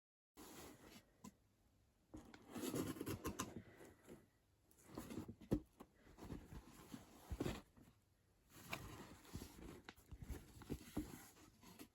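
Hands handling packaging and products: irregular bouts of rustling and scraping with a few sharp clicks, in about four bursts.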